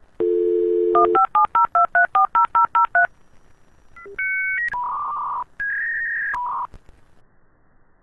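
Dial-up modem connecting: a short steady phone dial tone, a quick run of about a dozen touch-tone dialing beeps, then about a second later the modem's screeching, warbling handshake tones for a couple of seconds before cutting off.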